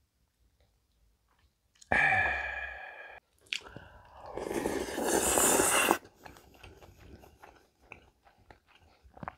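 A loud voiced exhale after a shot of soju about two seconds in. Then a loud wet slurp of a spoonful of sundae gukbap that builds and stops abruptly, followed by soft chewing clicks.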